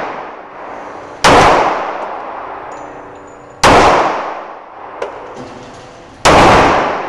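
Colt 1911 pistol fired three times, about two and a half seconds apart, each loud shot followed by a long echoing decay off the walls of an indoor shooting range.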